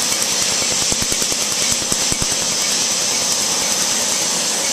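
Tattoo-removal laser firing a rapid, steady run of sharp snapping pulses, each a pulse striking the tattooed skin, over a steady hiss. The pulses stop near the end.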